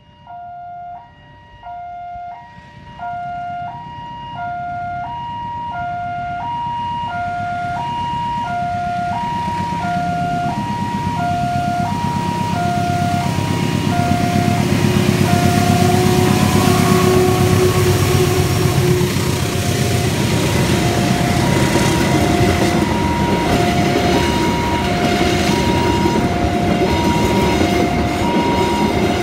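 Railway level-crossing alarm ringing in alternating high and low tones, about one pair every second and a half, as a diesel-hauled passenger train approaches and passes over the crossing. The rumble of locomotive and wheels builds from about halfway and half drowns the alarm.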